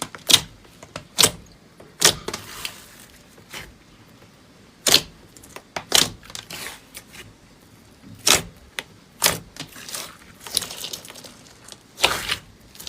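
Slime being handled by hand, giving a string of sharp pops and clicks at irregular intervals, often about a second apart, with softer crackling between them.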